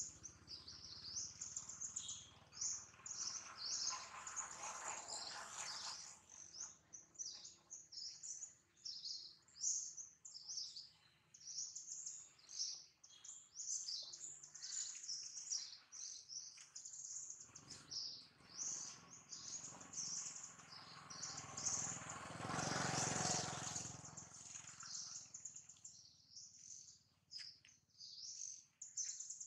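Many small birds chirping continuously in quick, overlapping calls. A low rushing noise swells and fades twice, a few seconds in and more loudly about three-quarters through.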